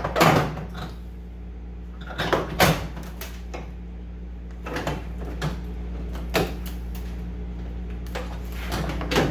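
Interior door panel of a 1985 Chevrolet C10 truck door being wiggled up and pulled off: bursts of scraping, knocking and rattling as it is worked loose, about five bursts a second or two apart, over a steady low hum.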